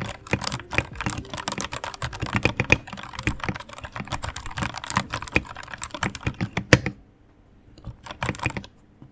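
Fast typing on a Royal Kludge RK84 mechanical keyboard with red linear switches, a dense run of key clacks. The typing stops about seven seconds in, followed by one short flurry of keystrokes about a second later.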